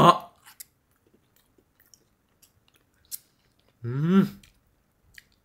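A man's short, contented 'mmm' hum about four seconds in, its pitch rising then falling, as he tastes the food. Before it come faint chewing and small clicks of chopsticks.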